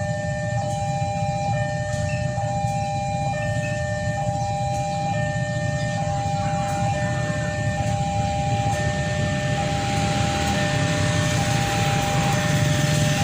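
Railway level-crossing warning alarm sounding a steady electronic tone that repeats about once a second, over a low rumble that grows louder toward the end.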